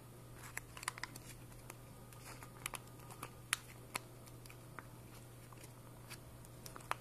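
Sheet of origami paper being handled and folded by hand, giving faint, scattered crinkles and small ticks over a steady low hum.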